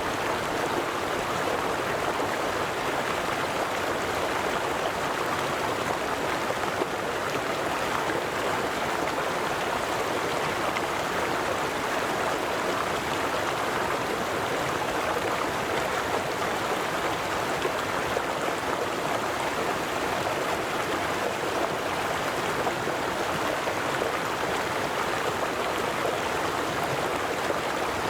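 River water flowing steadily over stones: a constant rushing and babbling with no change in level.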